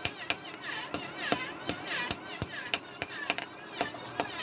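Sharp striking knocks, about four a second at slightly uneven spacing: tools striking metal in a workshop.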